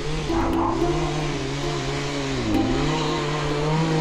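Chainsaw running at high revs, its pitch dipping and recovering twice as it bites into logs, growing louder toward the end.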